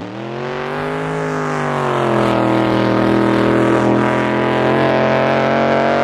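Drag boat racing engine at full throttle, a loud, steady, raw engine note that comes in suddenly. Its pitch rises for about a second, dips, then holds and creeps slowly upward as the boat runs down the course.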